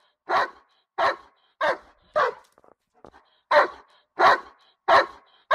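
Doberman barking repeatedly, about seven loud barks evenly spaced, with a break of over a second in the middle.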